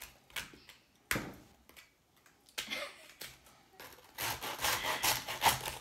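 Knife sawing through the crisp, crackly skin of a roasted pork leg, with a few sharp knocks in the first seconds, then a dense crunching crackle for the last second and a half.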